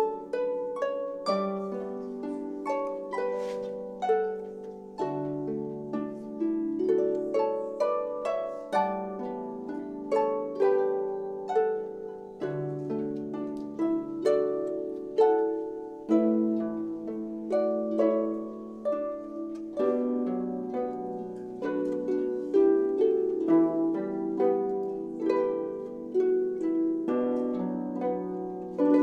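Several concert harps playing a piece together: a steady flow of plucked notes, each striking and ringing away, over lower notes held beneath.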